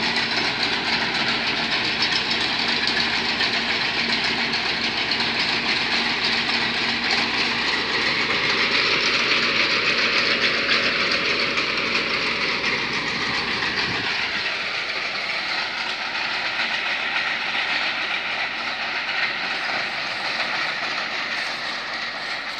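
Amphibious pontoon excavator's diesel engine and tracks running steadily as it moves along the river, the engine's pitch rising slightly and falling back in the middle, the sound growing a little quieter in the second half.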